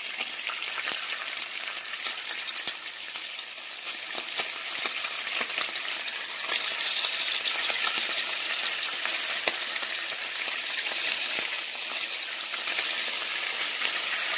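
Turkey bacon sizzling in a hot, lightly oiled frying pan, with many small crackling pops. Strips are added one after another, and the sizzle grows a little louder about four seconds in. The pan is turned up high enough to smoke.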